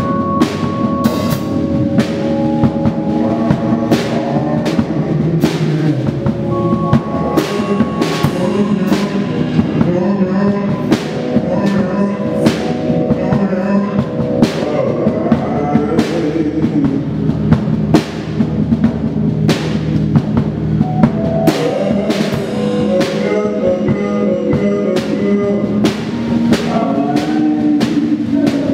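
Improvised live band music: irregular drum kit and cymbal hits over held keyboard and synth notes.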